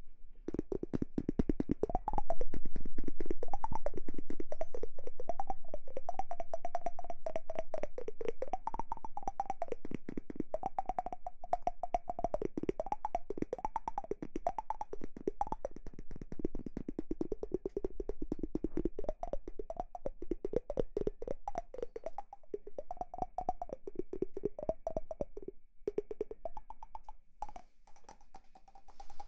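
Fast, continuous tapping whose ringing pitch wanders up and down. It gets louder about two seconds in, then slowly fades.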